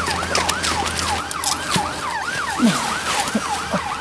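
Police car siren wailing in a fast, steady rising-and-falling yelp, about two and a half sweeps a second.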